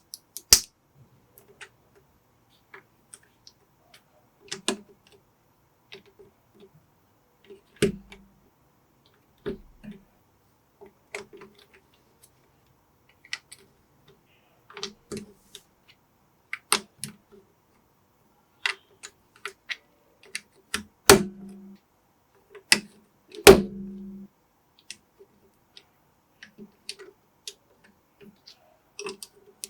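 Plastic building bricks clicking and snapping together as small pieces are picked up and pressed on, in scattered sharp clicks with gaps between them. Two louder knocks with a brief ring come close together about two-thirds of the way through.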